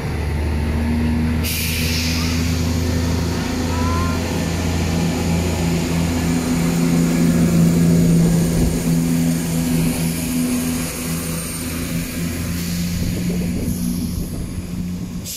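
Class 170 Turbostar diesel multiple unit's underfloor diesel engines running with a steady, low hum that grows louder towards the middle. A sudden hiss of released air starts about a second and a half in.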